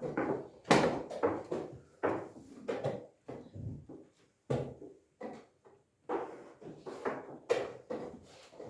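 A quick, irregular series of wooden knocks and clacks, about one or two a second: chess pieces being set down on boards and chess clock buttons being pressed during play.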